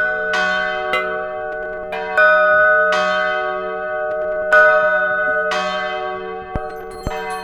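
Church bells pealing: several bells are struck one after another, about six strikes, and their ringing overlaps and fades between strikes. A few sharp clicks come near the end.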